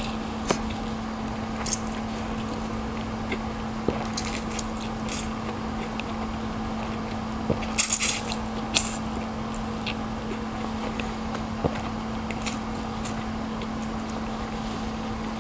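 Noodles being slurped and chewed close to the microphone: soft wet chewing clicks throughout, with two loud slurps about eight seconds in. A steady low hum runs underneath.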